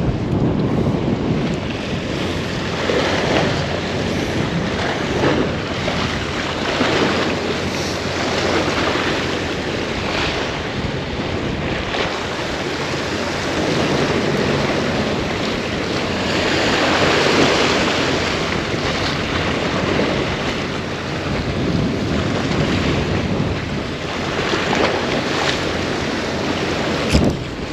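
Surf washing on the beach with wind buffeting the microphone, a steady rushing that swells louder about two-thirds of the way through.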